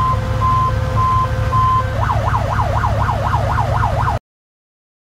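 Fire engine siren heard from inside the cab over the engine's low drone. It gives an alternating two-tone hi-lo pattern, then switches about two seconds in to a fast yelp sweeping up and down about four times a second. The sound cuts off suddenly near the end.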